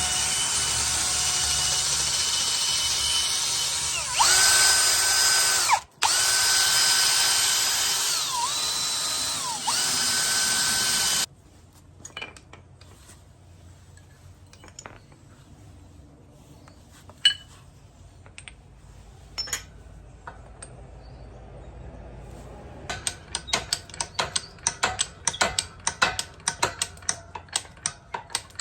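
Electric power tool motor whining at full speed in several long runs, spinning up and winding down between them, then stopping about eleven seconds in. Scattered clicks and knocks of hand work follow, with a run of quick ratchet-like clicks near the end.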